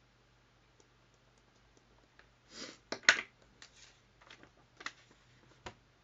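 Sheet of paper rustling and handling clicks as it is picked up and raised. The loudest rustle and clicks come about three seconds in, with scattered light clicks before and after.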